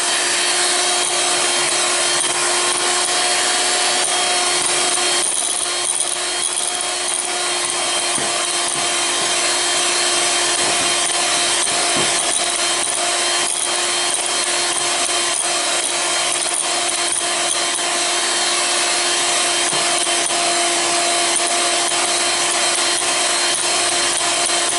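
Electric hand mixer running at a steady pitch, its beaters whipping cream in a glass bowl while sweetened condensed milk is worked in.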